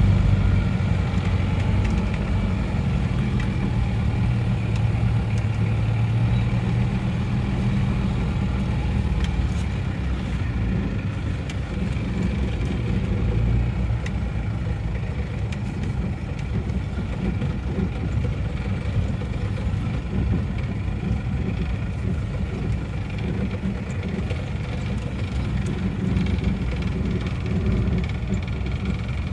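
Old Isuzu Panther's engine running at low revs as the van rolls slowly, heard from inside the cabin as a steady low rumble.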